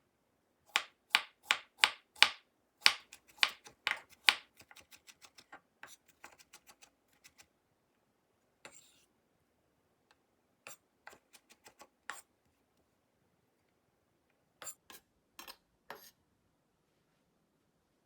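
Kitchen knife chopping vegetables on a cutting board: a run of firm, even chops at about two or three a second, then quicker, lighter chops, then a few scattered groups of chops.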